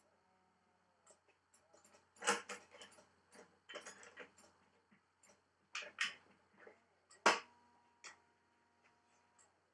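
Scattered clicks and knocks of a badminton racquet being strung on a stringing machine: string and clamps being handled, with a few sharper knocks. A steady hum follows the loudest knock, about seven seconds in, and stops near the end.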